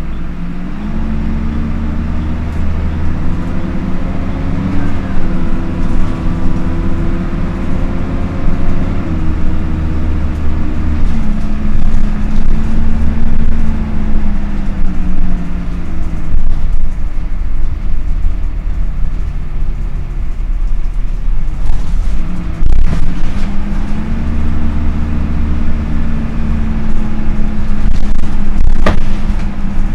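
Dennis Dart SLF bus running with its engine cooling fan on. The engine note rises and falls several times, held higher for a few seconds at a stretch, under a steady low rumble.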